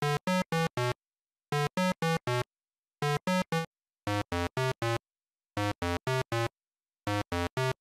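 Retro 8-bit video-game style synthesizer beeps: short runs of three or four quick notes, one run about every second and a half.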